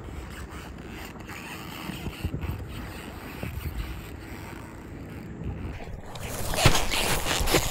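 Wind rumbling on the microphone at the seashore. About six seconds in, a louder rough rustling and scraping noise takes over.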